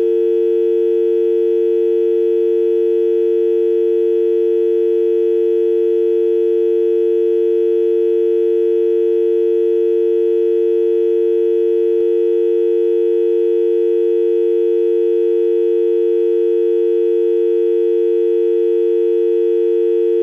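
UK telephone dial tone: two low tones sounded together in one steady, unbroken hum.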